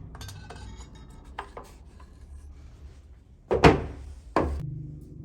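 Wood being rubbed and handled with small clicks, then two loud knocks about a second apart near the end.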